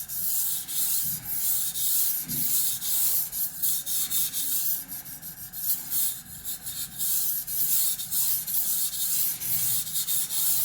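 A kitchen knife blade stroked back and forth on the wet 3000-grit side of a Suehiro SKG-38 waterstone: a gritty, hissing rub with each stroke, the soft stone building a thick slurry of mud.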